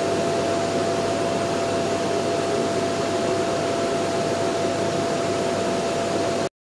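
Steady machine-shop background noise, an even mechanical whirr with a constant hum-like tone under it. It cuts off abruptly near the end.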